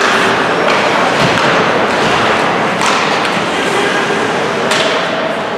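Ice hockey rink noise: a loud, steady rush with a few sharp knocks, about three seconds in and again near the end.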